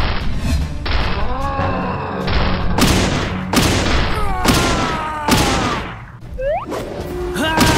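Cartoon punch-and-boom sound effects, a string of heavy hits about one a second, as a giant fist pounds a bubble, over background music.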